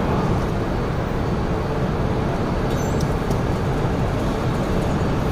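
Steady rushing hum of an E5 series Shinkansen standing at the platform with its onboard equipment running, with a faint high click about three seconds in.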